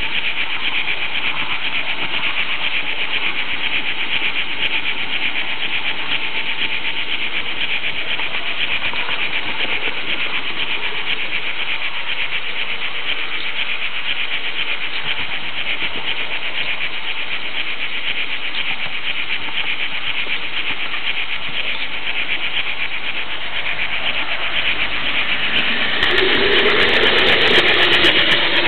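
H0 Märklin model train running on its track, heard up close from a car in the train: a steady high rushing rattle of wheels and locomotive running gear. Near the end it grows louder and fuller as the train runs into a long tunnel and the loco sound resonates.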